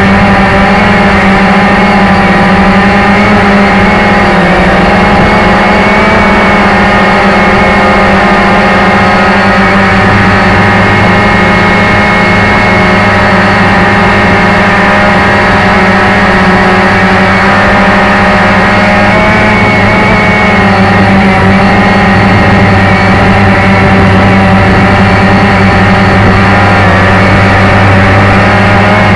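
Motor and propeller of a model aircraft, heard close up through its onboard camera: a loud, steady drone with a low hum and many overtones that waver slightly in pitch.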